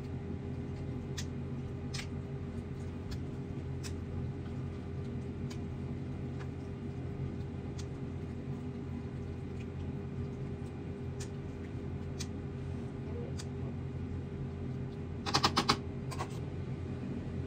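Steady low hum of a running kitchen appliance, with faint scattered ticks and a short rapid clatter of clicks near the end.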